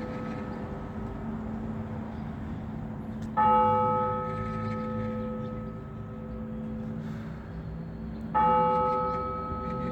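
A single large church bell tolled slowly, struck twice about five seconds apart, each stroke ringing on and fading gradually while its low hum carries between strokes: the measured toll that calls to a service.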